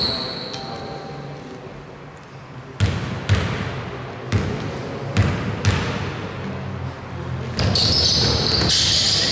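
A basketball bounced about five times on a hardwood court as a player sets up a free throw. Near the end comes a burst of high squeaking from sneakers on the floor as players go for the rebound.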